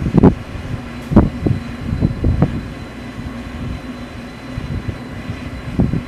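Wind gusting on the microphone, a few short low rumbles in the first half, over a steady low hum from the telescope dome's machinery as it closes.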